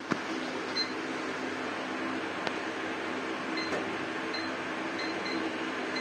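Hot air rework station blowing a steady rush of air from its handpiece onto the logic board, heating the shorted SSD chips to desolder them. A few very short high beeps sound through it.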